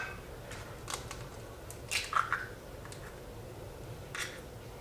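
An eggshell being broken open and emptied over a Thermomix mixing bowl: a few faint scattered clicks and crackles over a faint steady hum.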